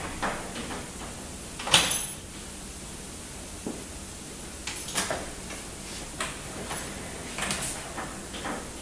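Timber sliding door with an auto-locking hook lock and soft-close slide being worked along its track: a series of sharp clicks and knocks from the lock and panel, the loudest about two seconds in and another about five seconds in, over a steady hiss.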